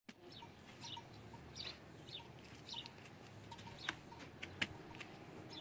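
Small birds chirping repeatedly, faint. About two-thirds of the way through come two sharp knocks from a hand shovel striking the packed earth.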